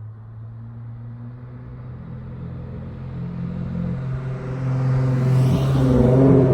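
Dodge Charger SXT's V6 through a Flowmaster Outlaw exhaust, a low, steady exhaust note that grows steadily louder over several seconds while its pitch holds fairly even.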